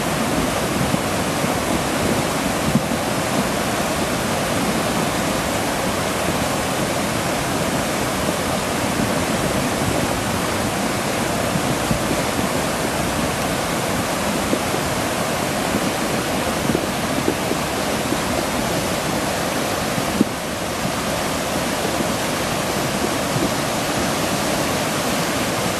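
Flash-flood water in a creek rushing and churning in a steady, loud torrent.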